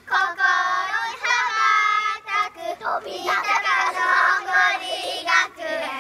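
A small group of young children singing a song together, in sung lines with brief breaks between them.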